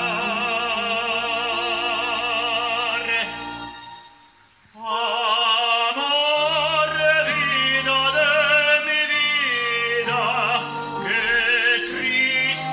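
A man singing in an operatic style with wide vibrato: a long held note that fades out about four seconds in, then, after a short pause, more sung phrases over steady low accompanying notes.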